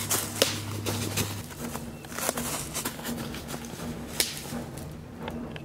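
Running footsteps crunching over dry pine needles and dead sticks on a forest floor, with irregular snaps of twigs underfoot.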